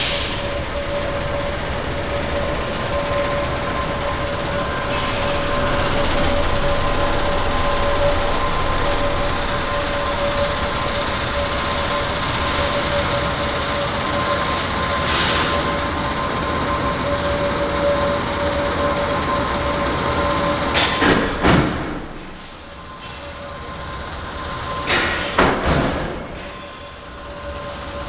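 Sorting machine running, a steady mechanical drone with a constant humming tone. Near the end come a few sharp clacks and rattles, and the drone twice drops away briefly.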